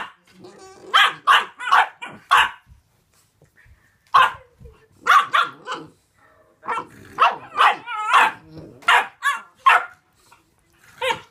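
Bullmastiff puppies barking in play as they wrestle: short, high puppy barks in quick bunches of two to four, some with a wavering, growly pitch, about sixteen in all with short pauses between the bunches.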